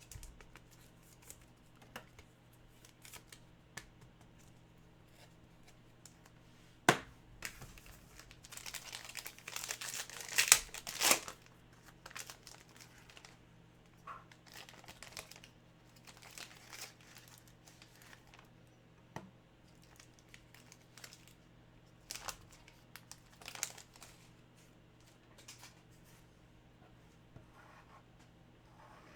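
Trading card packaging being torn and crinkled by hand. A sharp click comes about seven seconds in, then a burst of tearing and crinkling a second or two later, with scattered softer rustles afterwards.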